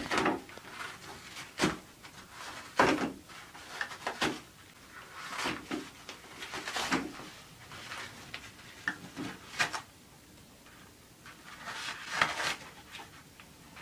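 A toilet paper roll knocking and rattling on its wall holder, with paper rustling, as a cat paws and pulls at it: irregular clunks and rustles every second or two.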